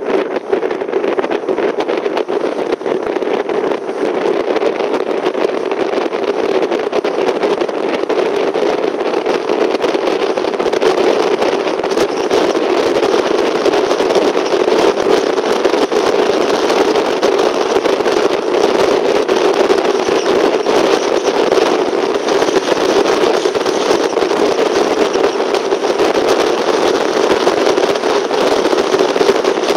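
Car driving at steady speed: continuous tyre, engine and wind noise with a fine crackle running through it, getting slightly louder after about ten seconds.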